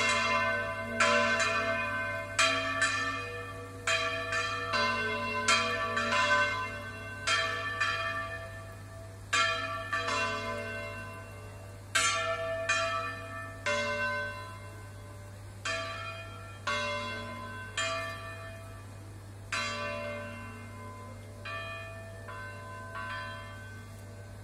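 Church bells swung full circle in a volteo, each clapper strike ringing out over the last. The strikes come further apart and grow fainter as the ringing winds down.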